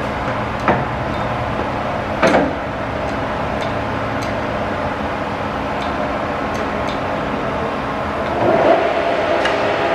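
Graziano 20-inch swing lathe running, with a steady mechanical hum and whine from its gearing. There are two sharp metallic clunks, one under a second in and one about two seconds in, as the controls are worked, and a brief swell in the running sound near the end.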